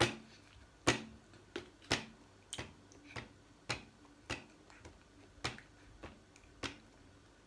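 A string of about a dozen short, sharp clicks, roughly one every half second.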